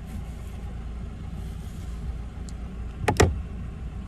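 Car engine idling with a steady low hum. A couple of sharp clicks come about three seconds in.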